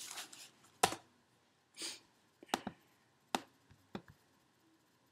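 Several separate sharp clicks of computer input as a Mac is operated by hand, the loudest a little under a second in, with a short soft hiss about two seconds in.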